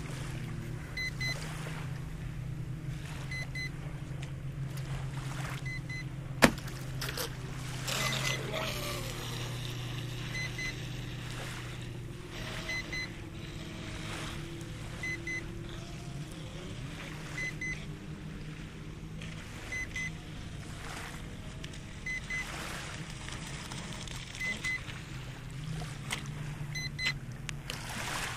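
WLtoys WL913 brushless RC speedboat running on the water, its motor revving up and down about eight seconds in. Throughout, a low-voltage alarm gives short double beeps every two seconds or so, a sign that the 4S LiPo battery is running low. A single sharp click about six and a half seconds in is the loudest sound.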